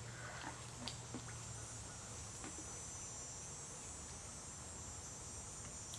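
Insects buzzing steadily at a high pitch, typical of a summer insect chorus; the buzz grows stronger about two seconds in. A few faint small splashes from a swimmer are heard under it.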